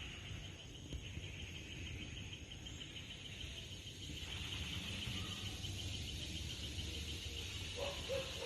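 Insects chirping in a steady, rapid pulsing trill over a low rumble, with a couple of short higher calls near the end.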